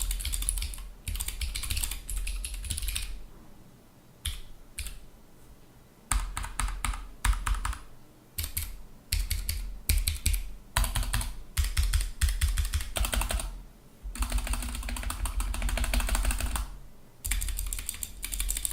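Typing on a mechanical keyboard with Gateron switches: quick runs of sharp key clicks and keycap clacks, broken by brief pauses.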